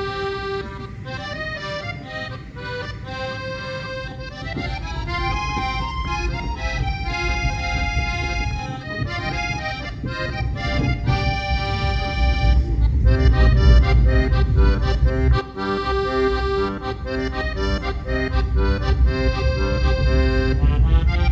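Instrumental music: a melody over held chords, with a quick rising run of notes about five seconds in, above a low rumble that grows louder in the second half.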